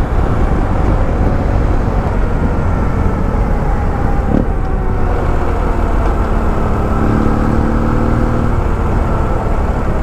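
BMW F800GS's 798 cc parallel-twin engine running steadily at road speed under rushing wind noise.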